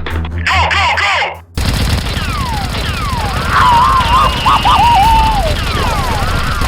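Rapid automatic gunfire sound effect, a dense continuous rattle starting about a second and a half in, with falling whistling whines over it. A short warbling, pitched sound comes before the gunfire starts.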